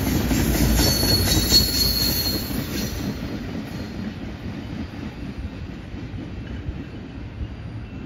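Freight train tank cars rolling by on a curved track, wheels rumbling and clacking, and the sound fades as the end of the train moves away. A thin, high wheel squeal sounds from about a second in, for around two seconds.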